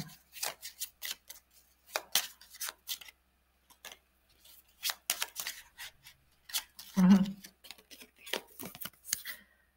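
Tarot cards being shuffled and handled by hand: a run of crisp, irregular clicks and snaps of card edges. A short hum of voice comes about seven seconds in.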